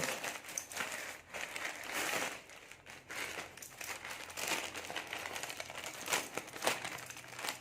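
Parcel packaging crinkling and rustling in irregular bursts as it is handled and opened by hand.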